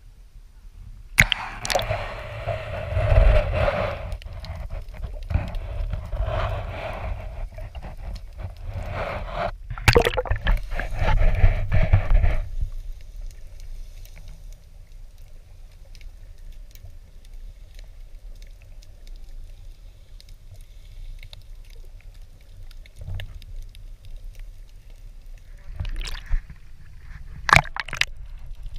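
Water sloshing and splashing around a GoPro action camera's waterproof housing at the surface for about ten seconds. Then the muffled low rumble of the camera underwater, with a couple of sharp clicks near the end.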